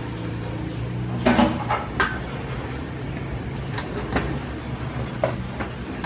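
Aluminium camping cookware, a pot and a kettle, being handled and shifted on a camp table: a cluster of knocks and clatters about a second in, then scattered lighter knocks and clinks, over a steady low hum.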